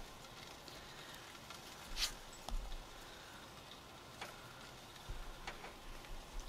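Faint handling noise of sticky naan dough being divided and shaped into balls on a floured wooden board, with a few light taps, the clearest about two seconds in.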